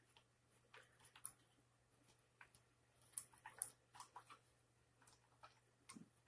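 Faint, scattered clicks and crinkles of a small cardboard drink box and its wrapping being handled and worked open by hand and teeth, busiest about three seconds in.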